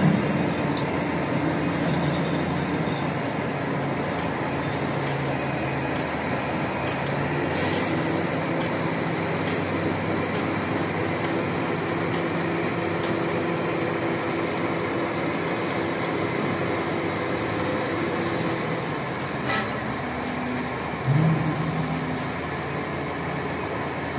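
P&H electric rope shovel and haul truck working at a loading face: a steady machinery drone with a low hum, rising in pitch briefly about 21 seconds in.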